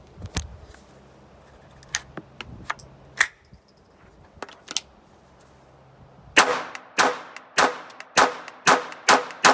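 Intratec Tec-22 .22 LR pistol firing about seven shots, roughly two a second, in the second half. Before them come a few scattered sharp metallic clicks from its action being worked, clearing a failure to eject.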